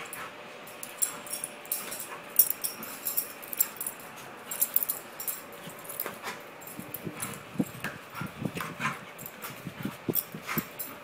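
A dog spinning after its tail on a carpeted floor: its collar tags jingle in quick irregular ticks while its paws scuffle and thump, the thumping getting busier in the second half.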